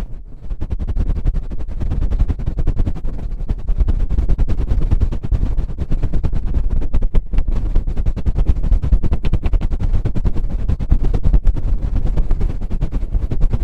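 Goose-feather wand tapped rapidly against the microphone: a dense, unbroken run of low thumps, many a second, for intense ASMR.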